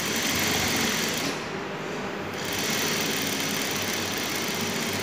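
Industrial single-needle lockstitch sewing machine running steadily, topstitching along a folded cotton hem. It eases off briefly about a second and a half in, then picks up speed again.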